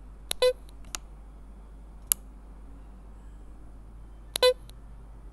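Button on the temple arm of a pair of Bluetooth audio sunglasses being pressed, with a few sharp clicks, and the glasses' built-in speaker giving a short beep about half a second in and again a little before the end: status prompts from the glasses as the button is worked.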